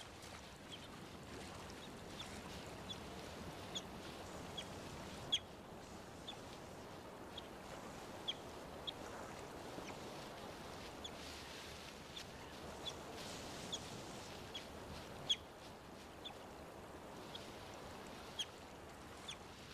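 North American river otters chirping: short, high squeaks scattered about a second apart, over the steady rush of the river.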